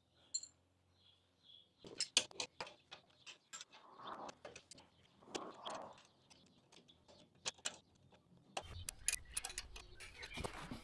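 Scattered sharp metallic clicks and clinks of pliers working on the nuts of a two-wheel tractor's clutch linkage.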